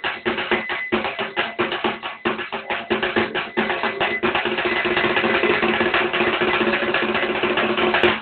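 Fast rhythmic drumming in a musical performance, many strokes a second over a few held tones, becoming denser and almost continuous about halfway through.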